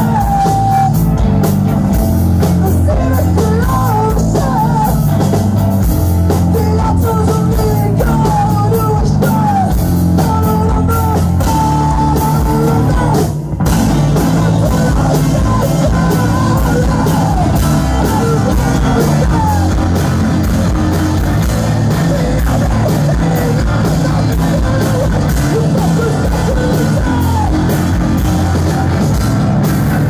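Live post-hardcore band playing loud, with distorted guitar, bass, drums and vocals. The band drops out very briefly about halfway through, then comes straight back in.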